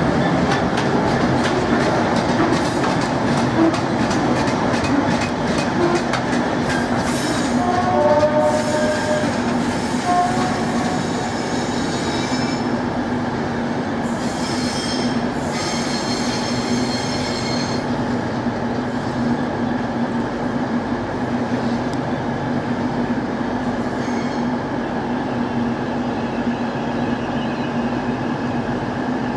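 Class 31 diesel locomotive running slowly along station sidings, its engine a steady hum. A run of quick clicks comes in the first few seconds, and brief wheel squeals about eight to ten seconds in.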